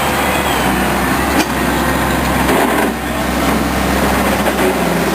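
Heavy construction machinery diesel engines running steadily, with a short sharp knock about a second and a half in.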